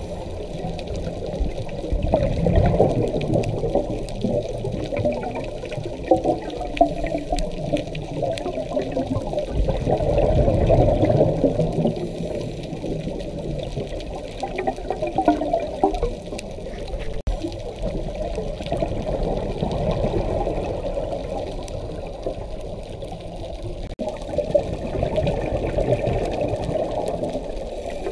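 Scuba regulator breathing heard through an underwater camera: the diver's exhaled bubbles gurgle and rush in swells about every four to five seconds, muffled and low.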